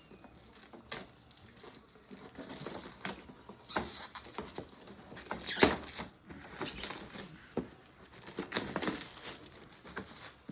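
A cardboard fireworks assortment box being opened and unpacked: irregular crinkling, tearing and rustling of packaging with small handling knocks, loudest about five and a half seconds in.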